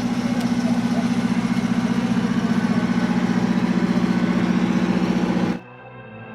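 Race car engine idling steadily with a fast, even pulsing beat. It stops abruptly about five and a half seconds in, and soft ambient music takes over.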